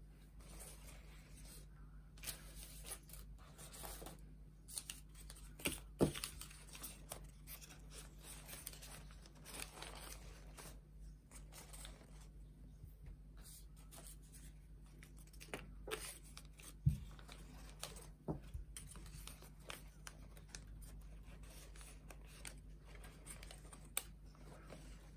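Faint rustling and crinkling of folded origami paper units as they are handled and slotted together into a kusudama ball, with a few sharper light knocks, the loudest about six seconds in and again near seventeen seconds.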